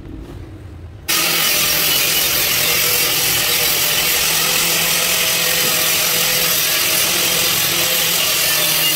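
A loud, steady machine noise with a low hum running under it, starting abruptly about a second in.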